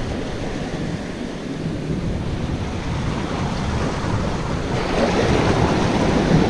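Sea surf washing against shoreline rocks, mixed with wind rumbling on the microphone; the wash grows louder about five seconds in.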